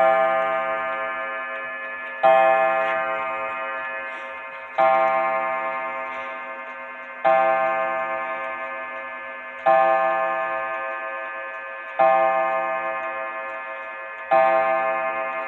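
German 8-day pendulum wall clock striking seven slow, evenly spaced strokes about two and a half seconds apart. Each stroke rings out and fades over a steady tick.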